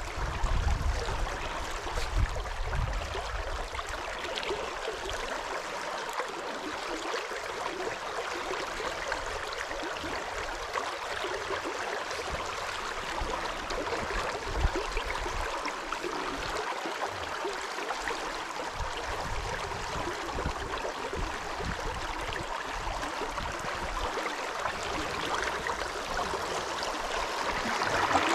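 River water running steadily over a shallow rocky riffle, with irregular low buffeting rumbles underneath and one sharp tick about halfway through. The rush grows louder near the end.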